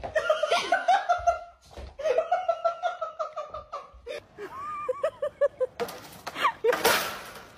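A person laughing hard in several runs of quick, high-pitched ha-ha bursts. A loud rush of noise follows near the end.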